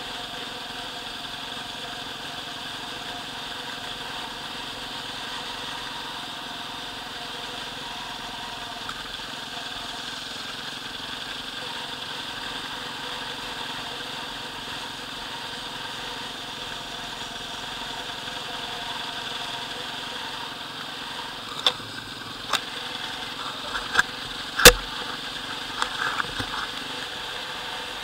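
Enduro motorcycle engine running at a steady, even speed while riding, heard close from the bike. Several sharp knocks come in the last few seconds, one much louder than the rest.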